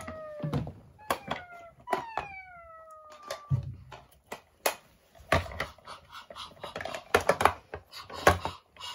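Hard plastic toy pieces clicking and knocking as a toy car playset and a plastic box are handled and fitted together. In the first three seconds, a few high squeals slide down in pitch.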